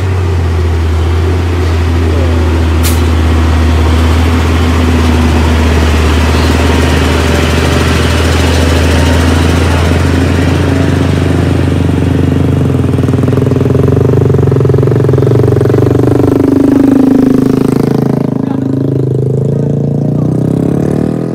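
Hino single-axle light truck's diesel engine running loud and close under load on a steep climb. Its pitch shifts in the last few seconds as the revs change. There is a single sharp click about three seconds in.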